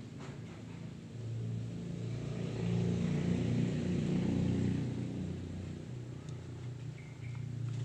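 A passing motor vehicle: a low rumble that swells over a few seconds, is loudest around the middle, then fades.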